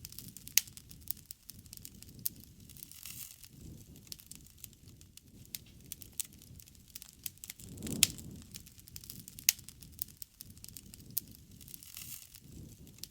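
Wood campfire crackling, with sharp pops scattered throughout over a low rumble; the loudest pop comes about eight seconds in, as the rumble swells.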